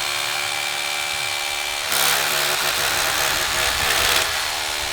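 Rotary hammer drilling into a masonry wall, the motor running steadily with a clear hum. From about two seconds in it gets louder and harsher as the bit works into the masonry, easing back a little near the end; the bit goes in easily.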